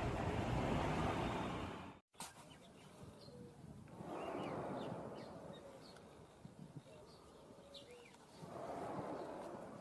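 Steady rushing noise that cuts off abruptly about two seconds in. Then quieter outdoor ambience with scattered short bird chirps and two slow swells of rushing noise that rise and fade.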